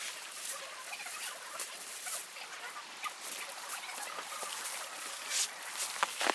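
Sped-up time-lapse audio of hands tying off a guy line on a foil emergency-blanket shelter in snow: a dense, chattering run of quick high clicks and rustles.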